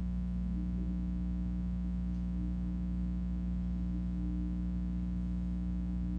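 Steady electrical mains hum with many evenly spaced overtones, unchanging throughout.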